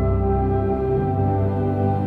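Soft ambient background music with long held synthesizer-like tones.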